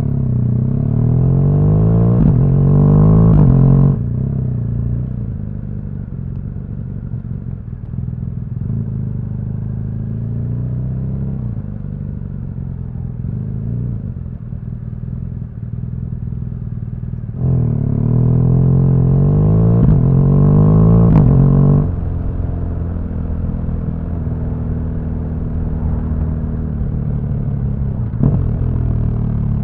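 BMW R1200GS boxer-twin engine accelerating hard twice, its pitch rising, at the start and again a little past halfway, each time ending abruptly and falling back to a lower steady running.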